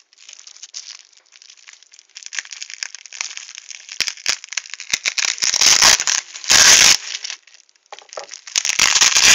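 Bubble wrap crinkling and crackling as it is cut open with a knife and pulled off a package, with louder, denser rustling about five to seven seconds in and again near the end.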